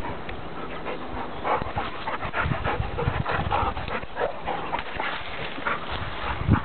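Two yellow Labrador retrievers panting and scuffling close by as they play. There is a thump near the end.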